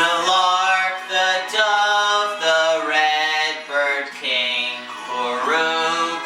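A man singing a slow Christmas carol melody over instrumental backing music, in phrases of held notes.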